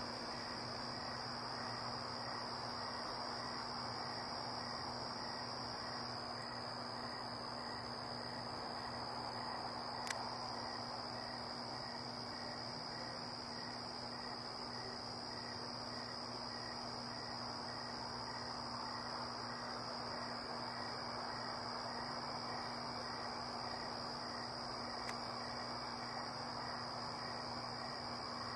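Crickets chirping steadily in one continuous high-pitched trill, over a low steady hum and background hiss. A single faint click comes about ten seconds in.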